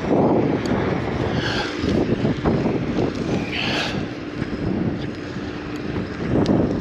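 Wind rumbling on the microphone, with a faint steady hum coming in about three seconds in.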